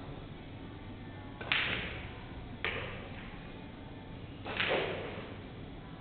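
A pool shot: a sharp clack of cue and balls about one and a half seconds in, a shorter ball click about a second later, and a longer, rougher knock near the end as balls settle.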